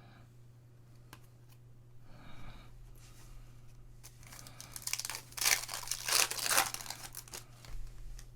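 A foil basketball card pack being torn open and its wrapper crinkled: quiet rustling at first, then a run of loud rough tearing and crackling from about halfway through.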